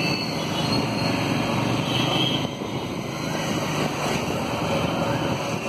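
Steady road traffic noise with motorcycles passing close by.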